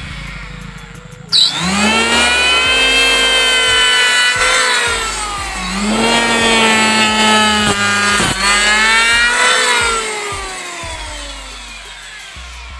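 Electric hand planer with a tungsten-carbide-tipped (TCT) blade starting up about a second in with a rising whine, then cutting along a hardwood block studded with nails, its pitch dipping and recovering twice, with a sharp click partway through. Near the end it is switched off and winds down with a falling whine.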